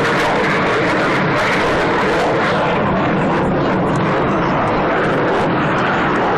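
A pair of military jet aircraft flying overhead, their engines making a steady, loud rushing noise with no clear tone.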